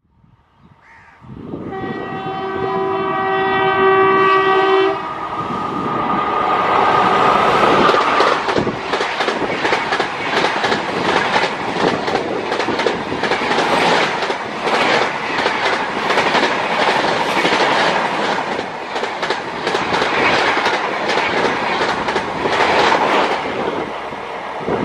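Indian Railways WAP-4 electric locomotive sounding its horn for about three seconds as it approaches at speed. Then the locomotive and its express coaches rush past with a rapid clatter of wheels over rail joints.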